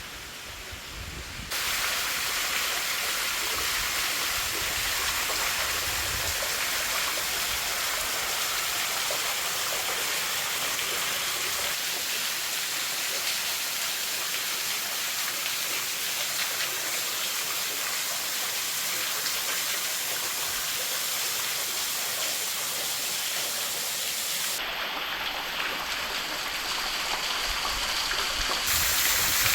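Waterfall's steady rushing hiss of falling water. It jumps much louder about a second and a half in, and for the last few seconds it sounds duller and deeper.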